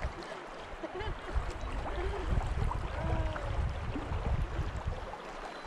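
Steady rush of the river current flowing around a wader, with irregular wind rumble on the microphone.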